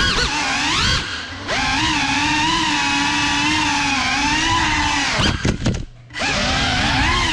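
FPV quadcopter's brushless motors and propellers whining, the pitch rising and falling with throttle. The whine eases off briefly about a second in, and about five seconds in it stutters and almost cuts out for a moment as the throttle is chopped, then spins back up.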